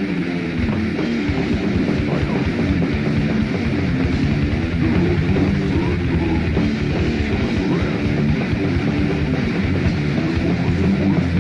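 Death metal from a 1993 demo tape: distorted electric guitars with bass, and the drums and full band come in about half a second in, after which dense drumming and riffing carry on at a steady loud level.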